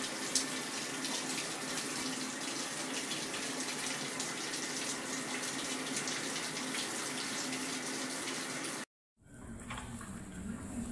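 Tap water running steadily in a tiled bathroom, an even hiss that cuts off abruptly about nine seconds in.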